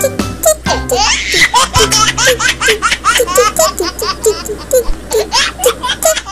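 A baby laughing in a long, unbroken run of quick giggles, about three or four a second, laid over background music as a laugh-track sound effect.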